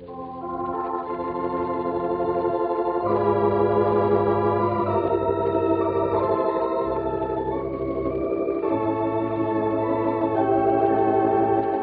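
Organ playing sustained chords over held bass notes that change every couple of seconds, on an old V-disc record with a dull, treble-less sound.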